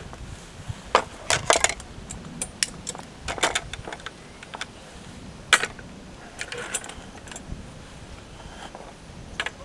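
Metal camp cookware clinking: a utensil knocking and scraping against a pot in a scattered run of sharp clinks, the loudest about a second in and again near the middle.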